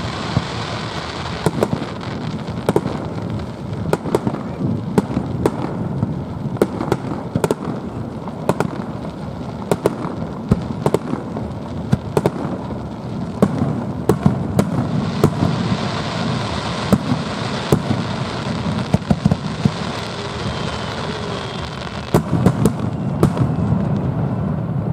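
Fireworks display: many sharp bangs at irregular intervals over a continuous crackle and rumble of bursting shells, growing denser and louder near the end.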